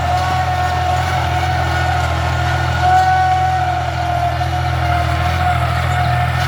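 Tractor engine running steadily under load while ploughing, with a high whine held at an even pitch over a low drone.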